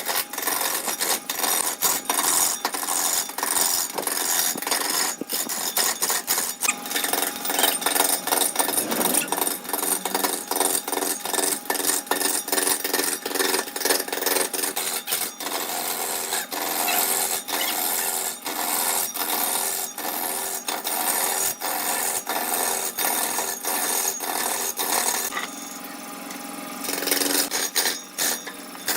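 Turning tool cutting into wood spinning on a wood lathe: continuous rough scraping and chipping with dense rapid clicks, easing briefly near the end.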